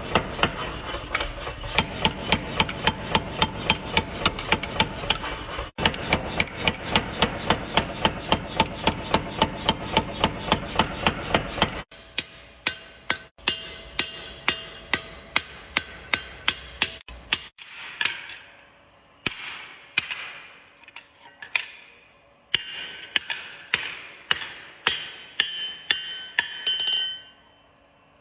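Hand hammer striking steel on an anvil during knife forging. First comes a fast, steady run of blows, about three a second. After about twelve seconds the blows turn lighter and sparser, and later each strike rings.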